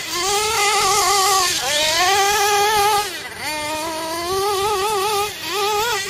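GS Racing Storm Evo nitro RC buggy's 3.5 cc (.21) two-stroke glow engine running at high revs. Its high-pitched whine wavers with the throttle, sagging and climbing back up several times.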